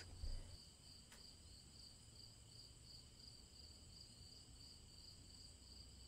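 Faint crickets chirping in a steady, even rhythm of about four or five chirps a second, over a low hum.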